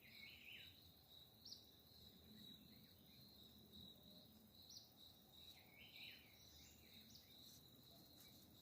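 Faint outdoor nature ambience: a steady high insect trill, like a cricket's, with a few short bird chirps scattered through it, a cluster of them about six seconds in.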